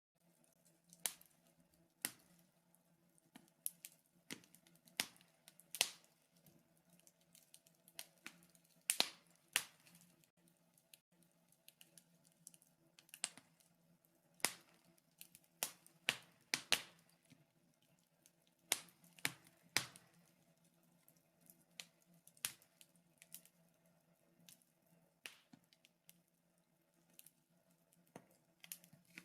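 Wood fire in a fireplace crackling, with irregular sharp pops and snaps about one or two a second, over a faint steady hum.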